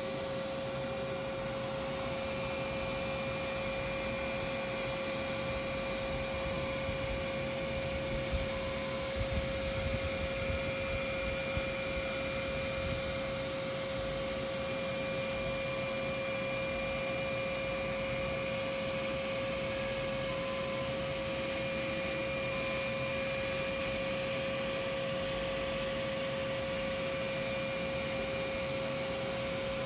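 3D printer running steadily: a constant machine hum with a fixed mid-pitched tone, plus a few light ticks about eight to twelve seconds in.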